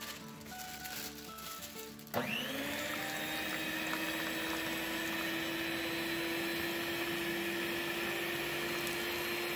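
Electric stand mixer switched on about two seconds in, its motor winding up quickly to a steady whine and running on as the beaters mix cake batter in a stainless steel bowl. Background music plays before it starts.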